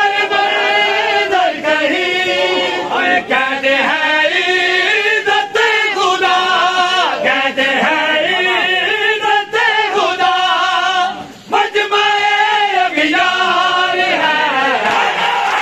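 A group of men chanting a noha, a Shia lament, in chorus without instruments, the melody rising and falling in long phrases, with a brief break about eleven seconds in.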